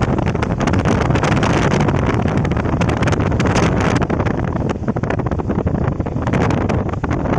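Wind buffeting the microphone: a loud, continuous rumble with crackling gusts.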